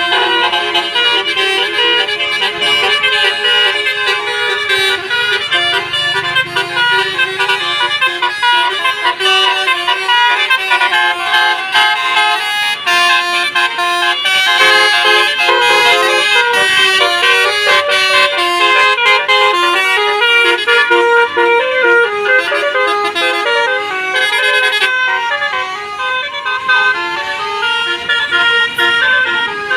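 Indonesian bus 'telolet' multi-tone air horn playing a tune: several horn notes stepping up and down in pitch, without a break.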